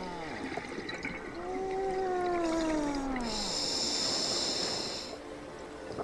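Scuba regulator breathing underwater: an exhale with bubbling and a falling hum, then a hissing inhale from about three to five seconds in.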